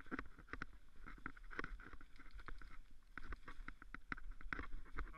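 Mountain bike being ridden over a rough trail: frequent irregular clicks and knocks from the tyres, chain and frame, over a low rumble picked up by the handlebar-mounted camera.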